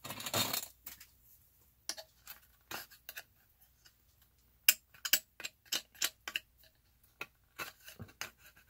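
Irregular scratching and small clicks as old, crumbling clay filler is picked and scraped out of a statue's cape, flaking off as it goes.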